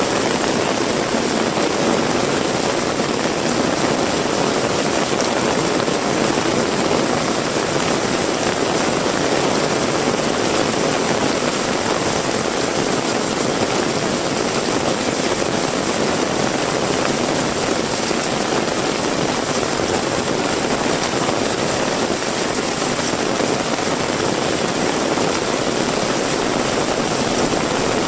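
Heavy rain pouring down steadily, a dense, even roar with no breaks.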